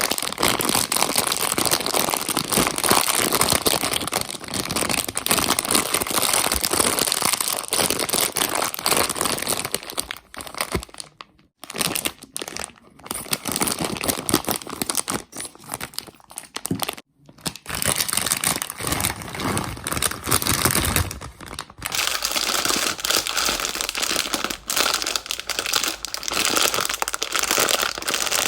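Plastic Haribo sweet bags crinkling and rustling as they are handled, with a few brief pauses about halfway through.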